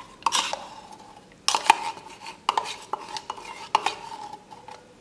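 A metal vessel knocking and clinking several times against the rim of a glass blender jar as liquid is poured into it, each knock ringing briefly.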